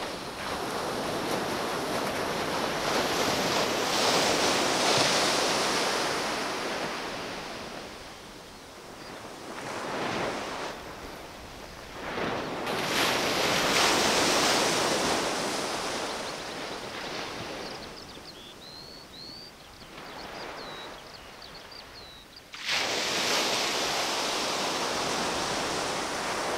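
Surf breaking on a beach: waves swell and wash back in long surges, with wind on the microphone. The sound jumps suddenly louder about 13 and 23 seconds in.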